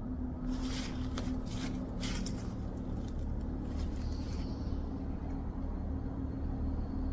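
Low steady rumble with a constant hum, with a few brief rustles or crackles in the first two seconds.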